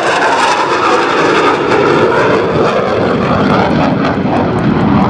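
F/A-18 Hornet's twin jet engines in afterburner, loud and steady as the jet flies off after its pass.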